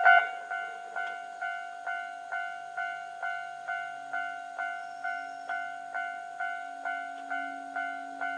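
Japanese railway level-crossing warning bell ringing steadily, a pitched 'kan-kan' ding repeating a little over twice a second. It becomes noticeably quieter right at the start.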